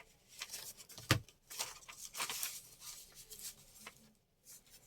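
Paper being handled: short rustles and scrapes of magazine paper, with one sharp knock about a second in.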